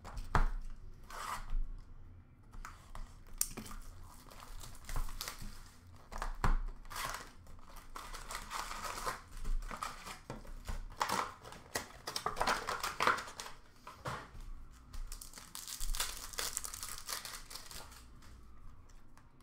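Wrappers of 2020-21 O-Pee-Chee Platinum hockey card packs being torn open and crumpled, in irregular bursts of crinkling and tearing with the odd sharp click of handling.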